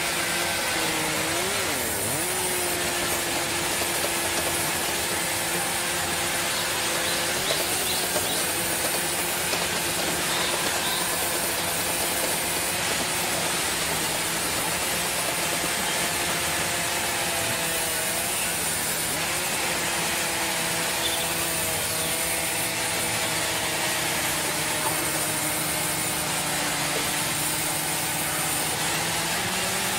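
Large sawmill band saw ripping a log into planks: a steady rasping cut with a whining tone that dips briefly now and then as the blade takes the load.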